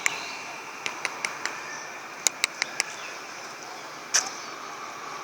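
A series of short, sharp clicks, mostly in quick runs of four, with one louder click about four seconds in, over a steady background hiss.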